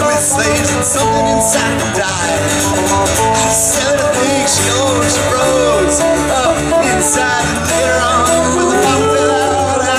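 Live rock band with electric and acoustic guitars, bass and drum kit playing an instrumental break, with a lead line bending and wavering in pitch over the steady rhythm, heard through the band's PA speakers.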